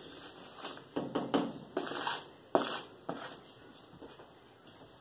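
Handling noises: several sharp knocks and taps mixed with rustling scrapes, loudest between about one and three seconds in.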